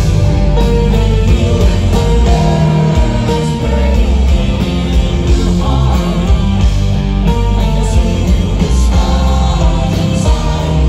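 Live heavy rock band playing loud, with distorted electric guitars, bass and drums and some singing, heard from within the audience.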